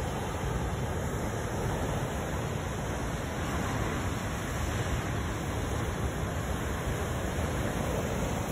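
Ocean surf breaking over a rocky reef shelf onto the beach, a steady wash of waves, with wind rumbling on the phone's microphone.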